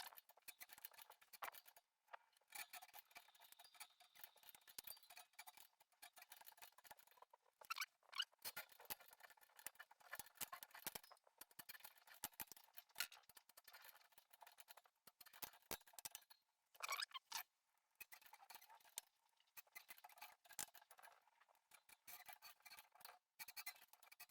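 Faint, irregular small clicks and ticks of hand work on a bicycle wheel being trued.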